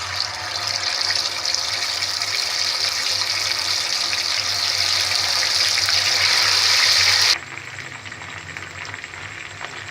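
Marinated, breadcrumbed chicken pieces frying in hot oil: a loud, steady sizzle. About seven seconds in it drops suddenly to a quieter crackling sizzle with small pops.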